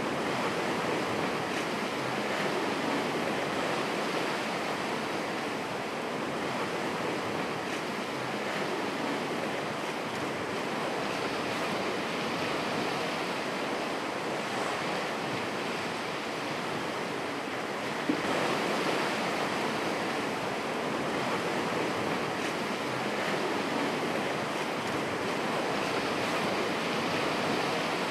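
Sea surf washing steadily against a rocky shore, a continuous rushing noise. There is a single sharp knock about two-thirds of the way through.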